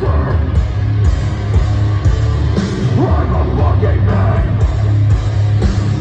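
Deathcore band playing live at full volume: distorted heavy guitars and pounding drums with a harsh screamed vocal over them.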